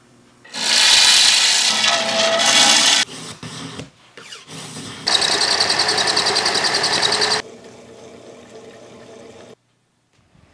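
Small power tool whirring in two loud bursts of about two to three seconds each. The second burst has a fast, even flutter as a bamboo rod's lacquered grip section turns in its motor-driven chuck.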